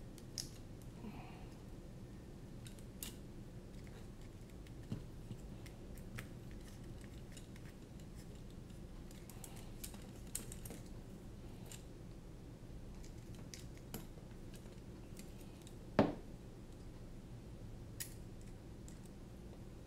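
Light, scattered clicks and taps of a hex screwdriver, small screws and a carbon-fibre drone frame being handled as a motor is screwed onto the frame arm, with one sharper knock about sixteen seconds in, over a faint steady hum.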